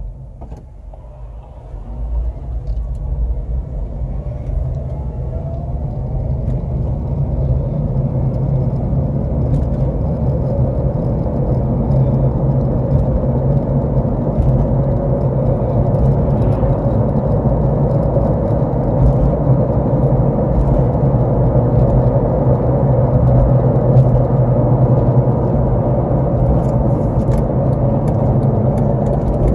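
2009 Honda Civic driving, its engine and road noise building steadily as it gathers speed after a brief quieter moment about a second in, then running on at a steady rumble.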